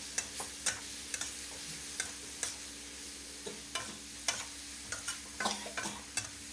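A metal spatula scrapes and knocks irregularly against a wok, a few strokes a second, as water spinach and pork belly with curry paste are tossed in a stir-fry. A steady sizzle of frying runs underneath.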